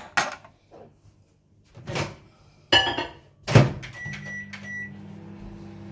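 A glass jug is handled and set into a microwave oven, and the door is shut with a thunk. A few short beeps follow, and the microwave starts running with a steady hum.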